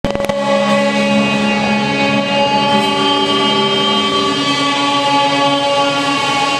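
Rock band playing live through a PA: long held notes and chords ring out and slowly change, with no clear drumbeat.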